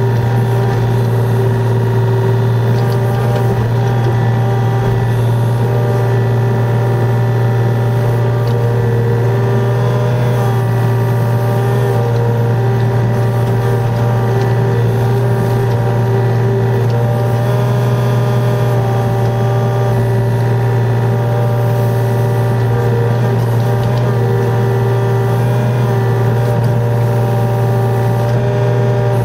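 Yanmar VIO35 mini excavator's diesel engine running steadily with a constant low hum, the machine working its boom and bucket as it digs.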